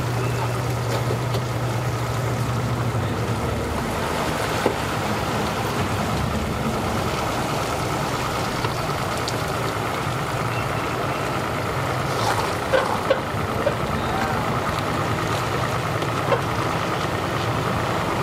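Pickup truck engine running steadily as it pulls a boat on its trailer up the launch ramp out of the water, with a few short knocks and clanks, most of them about two-thirds of the way through.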